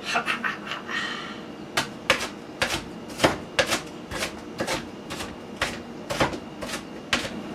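A kitchen knife dicing red onion on a plastic cutting board: a run of sharp, uneven knocks, about two a second, after a second or so of lighter clatter.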